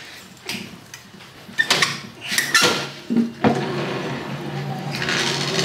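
Light metal knocks and clatter as a portable CNC plasma cutter's gantry carriage is slid onto its aluminium rack rail. About three and a half seconds in, a steady low hum sets in.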